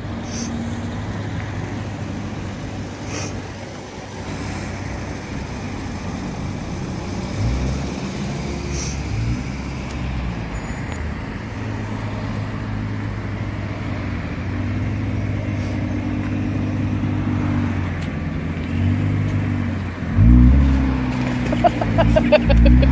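Nissan GT-R (R35) twin-turbo V6 running with a steady low drone, then revving and accelerating away near the end, the loudest part.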